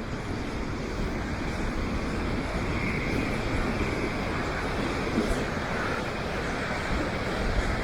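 Steady rushing of river water pouring over a dam, swollen with spring runoff.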